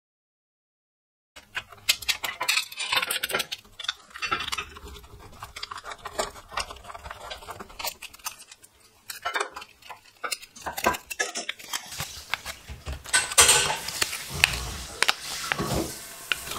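Thin sheet-metal label strip crinkling and clicking in the fingers as it is wound tightly around a thin rod into a spring coil. The sound starts after about a second of silence and is busiest near the end.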